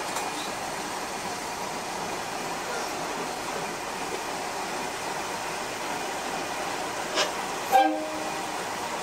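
SKR500 diesel railcar running steadily, an even rumble and hiss heard from the front of the car. Near the end comes a click, then a brief loud toot.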